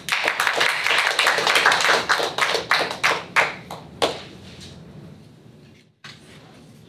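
Small audience applauding: dense clapping that thins to a few separate last claps about four seconds in, then dies away.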